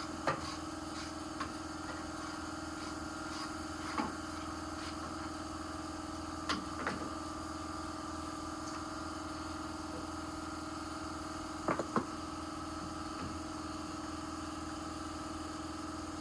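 A few sharp metallic clicks and knocks of hand tools on the car's fittings, spread out, with a pair of quick ones about twelve seconds in, over a steady mechanical hum.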